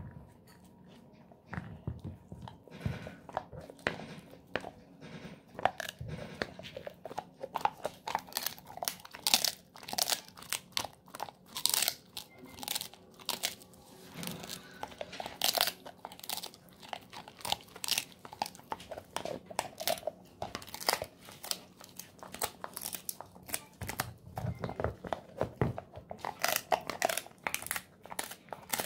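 Golden retriever chewing a dried pig ear treat: a long run of irregular, crackling crunches as its teeth break and tear the stiff ear. The crunches are sparse for about the first second, then come thick and fast.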